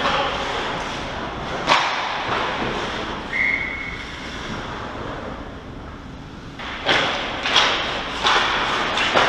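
Ice hockey play heard from right behind the goal: skate blades scraping the ice, with sharp clacks of sticks and puck, one about two seconds in and a quick run of them near the end. A brief high squeal sounds about three seconds in.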